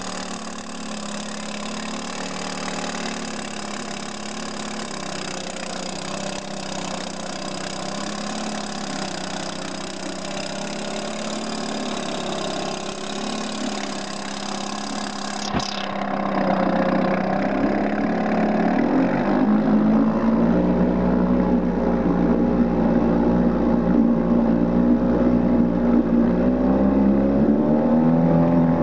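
Evinrude 4 hp two-stroke outboard motor running steadily in a test tank of water. About halfway through there is a sharp click, after which it runs louder while its propeller churns the water. Its pitch rises and then falls near the end.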